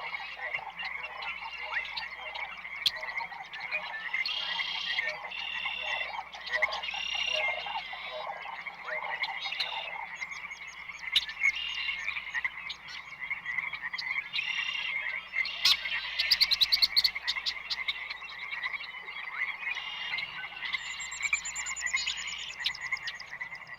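Rainforest frog chorus: many frogs croaking at once in overlapping pulsed calls. A lower layer of calls drops out about halfway through, a loud rapid run of pulses comes in past the middle, and a high trill joins near the end.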